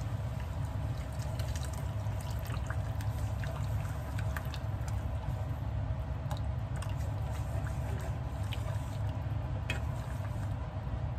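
Liquid bubbling in a pot on the stove, small irregular pops over a steady low hum.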